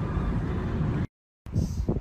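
Steady low rumble of a moving car's road and wind noise inside the cabin, cutting off abruptly about a second in. After a short silence come a few soft, low thumps.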